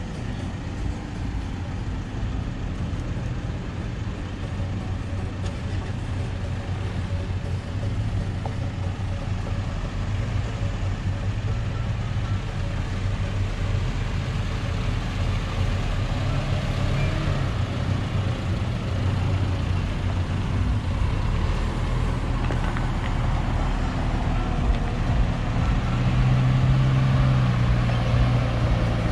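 Engines of 4x4 off-roaders, a first-generation Mitsubishi Pajero and then a Nissan Terrano, running at low speed over a rough dirt track. The engine drone grows gradually louder toward the end as the vehicles come close.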